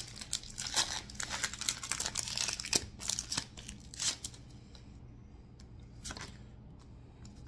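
Foil booster-pack wrapper being torn open and crinkled, with dense crackling for about the first three and a half seconds. A few softer rustles and taps follow as the cards are handled.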